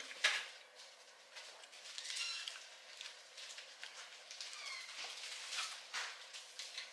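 Chewing and mouth sounds of sushi being eaten, with light clicks of wooden chopsticks against the plastic tray and the sauce bowl. A few short, high squeaky sounds come about two seconds in and again about four and a half seconds in.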